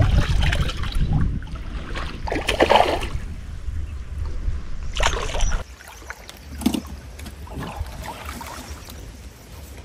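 Wind rumbling on the microphone with a few splashes of a hooked carp thrashing at the surface as it is drawn to a landing net; the wind noise cuts off abruptly about halfway, leaving quieter water splashes.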